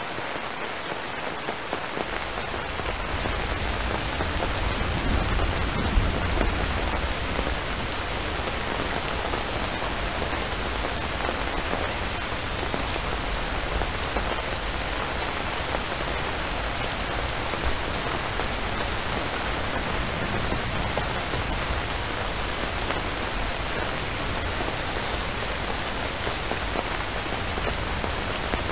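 Steady, dense rainfall. A low rumble comes in about two seconds in, swells a few seconds later and carries on under the rain.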